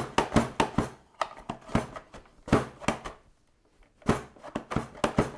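Pampered Chef mandoline slicer cutting a carrot on its julienne blade: the plunger is driven down again and again, giving quick crisp cutting strokes several times a second. The strokes pause briefly about three seconds in and then start again in another fast run.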